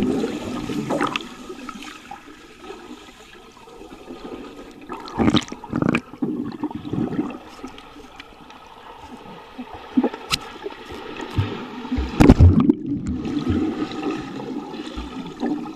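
Swimming-pool water heard through a submerged camera: muffled, gurgling water noise as swimmers race underwater. Several dull knocks come through, the loudest about twelve seconds in.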